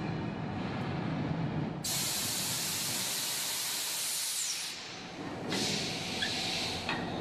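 Compressed air hissing hard from a freight wagon's air-brake hose as the wagons are uncoupled: the brake line venting. It comes in two bursts, one of about three seconds and then a shorter one after a brief pause, after a low rumble of rail wagons rolling.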